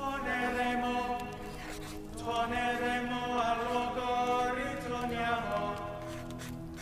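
Background music of chanting voices on long held notes over a steady low drone, with a new phrase starting about two seconds in and again near the end.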